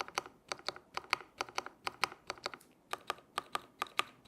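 Keychron K8 Pro mechanical keyboard's shift key, a long stabilized key, pressed over and over in quick clacks, about four or five a second with a short pause about two and a half seconds in. The stabilizers have been tuned, so the strokes come without rattle or tick.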